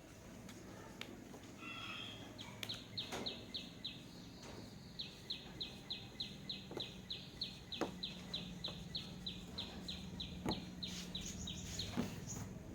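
A bird chirping: a long series of short, high, falling chirps, about three a second, with a few faint clicks in the background.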